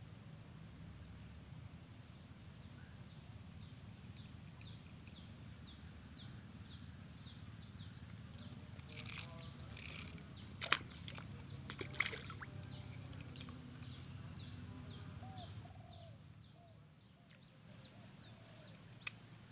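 A small climbing perch splashing and flicking at the water's surface as it is hooked and lifted out of the swamp pond: a cluster of sharp splashes about midway. Behind it, a steady high insect drone and a run of short chirps about two or three a second.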